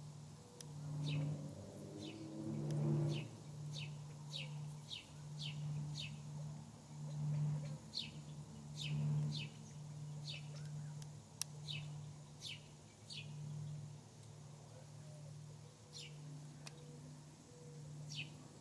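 Birds chirping: short, high chirps that fall in pitch, repeated about once or twice a second, over a steady low hum.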